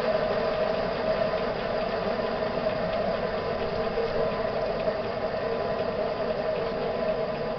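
J44 turbojet running steadily at idle: an even jet rush with a steady hum that holds without change.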